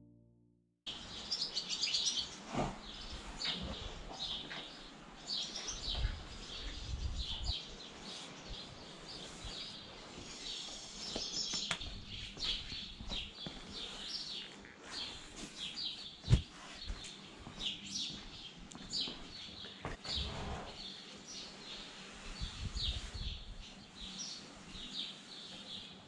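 Small birds chirping busily, short high calls repeating over and over, under low rustling and a few dull thumps; one sharp knock stands out about sixteen seconds in.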